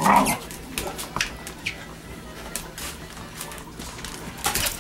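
Dogs at rough play on a hard floor: a loud, short dog vocalisation right at the start, then scattered clicks and knocks of paws on the floor, with another burst of noise near the end.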